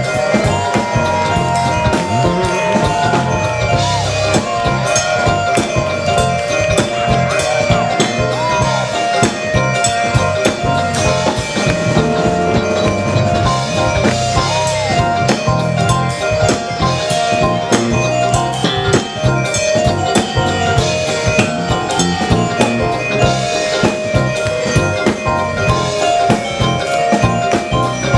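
Live jazz-funk band playing: vibraphone-style mallet notes from an electronic mallet keyboard over drum kit and electric bass guitar.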